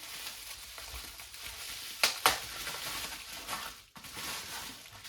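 Packaging being handled and unwrapped by hand: a continuous crinkly rustle, with two sharp clicks close together about two seconds in.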